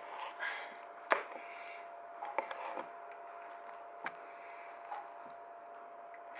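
A knife cutting through a soft, overripe mango on a wooden cutting board: several scattered knocks of the blade against the board, the loudest about a second in, between quieter rubbing and scraping of the knife in the fruit.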